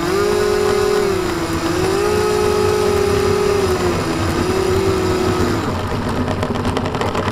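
Radio-controlled model airplane's motor and propeller running as the plane taxis across grass, the pitch rising and falling with the throttle. About five and a half seconds in the motor winds down, and clicking and rattling follow as the plane is handled.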